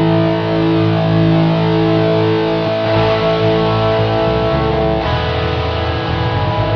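Background music led by a distorted electric guitar holding sustained chords, which change about five seconds in.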